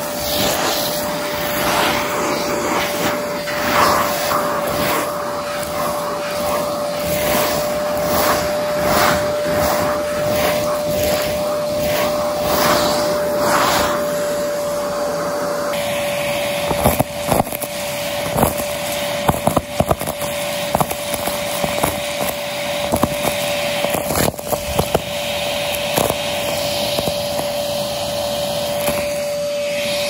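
Vacmaster vacuum running with a steady whine as its hose works over carpet: first the repeated strokes of a brush attachment, then, from about halfway, the bare hose end sucking up rubber bands, balloon scraps and beads, with sharp clicks and rattles as the debris crunches up the hose.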